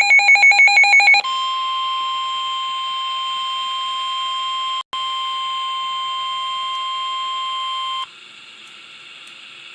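Emergency Alert System broadcast tones: the end of a rapidly warbling digital header burst, then a steady, loud electronic alert tone for about seven seconds with a brief dropout about five seconds in. The tone cuts off suddenly about eight seconds in, leaving faint broadcast hiss.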